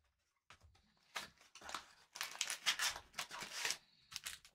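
Plastic crinkling and rustling in a run of short bursts as trading-card packs and cards are handled.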